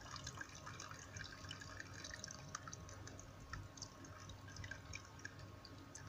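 Hot noodle water trickling and dripping from a pot through its strainer lid into a plastic bowl, faint.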